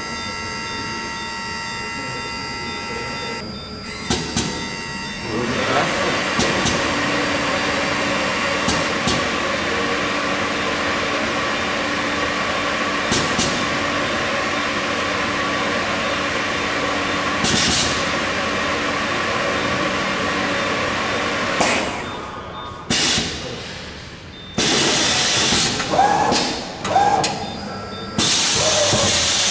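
Corghi Artiglio Master Code tyre changer running its automatic cycle, the wheel turning against the bead-breaker roller. A steady machine hum at first changes about five seconds in to a louder, steady mechanical running with occasional clicks. Near the end come several short, loud bursts of noise.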